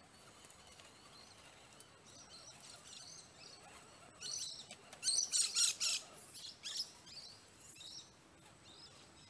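Wild birds calling, with scattered chirps building to a burst of loud, shrill, chattering calls about halfway through, then tailing off.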